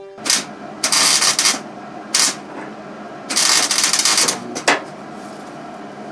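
Arc welding in short bursts on the car's sheet-metal rocker panel seam, crackling for a quarter second to about a second at a time, five times.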